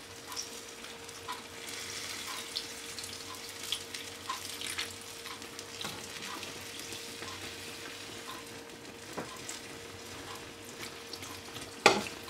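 Water poured from a glass jug into a hot glass baking dish of börek on the stovetop, sizzling and crackling steadily with many small pops as it hits the hot dish. A faint steady hum runs underneath, and a sharp knock sounds near the end.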